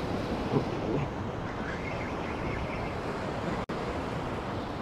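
Surf washing over the rocks, with wind noise on the microphone. The sound drops out for an instant about three and a half seconds in.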